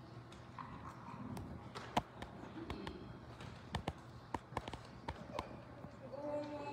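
Footsteps and handling noises: a scattered series of sharp taps and knocks as people walk across a stage floor and settle at a wooden lectern. Singing begins near the end.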